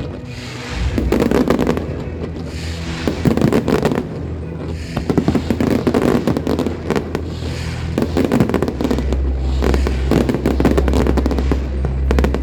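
Aerial fireworks bursting in repeated volleys of bangs and crackle, a new cluster about every two seconds, with music playing underneath.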